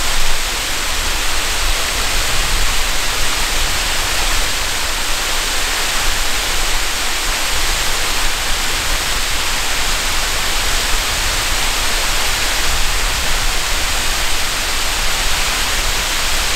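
Small tiered waterfall and the stream below it: a steady rush of falling and running water.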